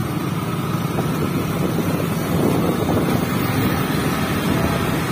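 Motorcycle riding along steadily, its engine running under wind rushing over the microphone.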